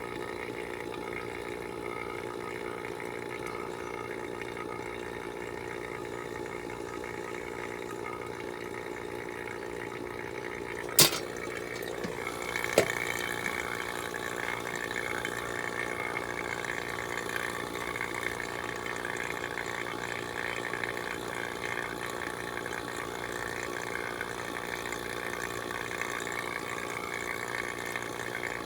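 Refrigeration vacuum pump running steadily as it evacuates the system to remove moisture. There is a sharp click about eleven seconds in and a smaller one about two seconds later.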